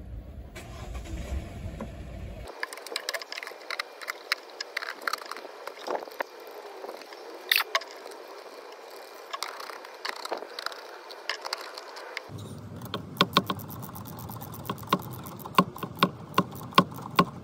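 Hand work in a car engine bay: plastic knocks, clicks and scrapes as the air filter housing is fitted and closed over a new filter. Near the end comes a run of sharp, fairly regular clicks as a hand tool works at the intake hose.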